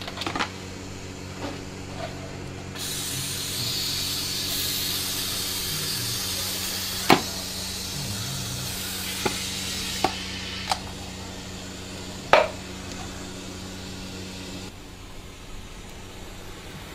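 A steady hiss of rushing air starts about three seconds in and cuts off suddenly about twelve seconds later, over a low steady hum, with a handful of sharp clicks along the way.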